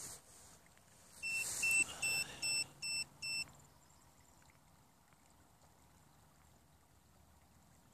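Bait boat electronics beeping: a quick run of about seven short beeps at one pitch, over a brief hiss, lasting about two seconds from a second and a half in.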